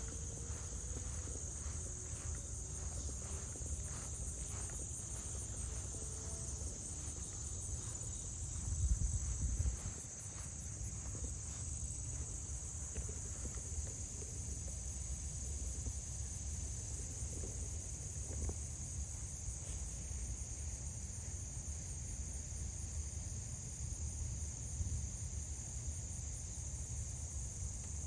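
Insects trilling in a steady high-pitched chorus over a low rumble, with a louder bump about nine seconds in.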